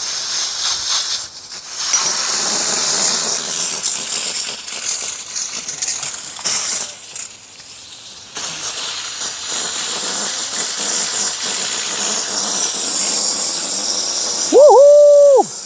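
Steam hissing steadily out of an Afghan kazan pressure cooker as its pressure is let off, dropping away briefly twice. Near the end comes a short, loud voice call that rises and falls in pitch.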